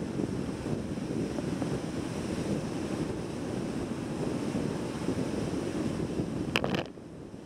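Rushing wind noise from airflow over a wing-mounted camera microphone on an Atos-S rigid-wing hang glider in flight, steady and low. A brief sharp crackle comes near the end, after which the rush drops a little quieter.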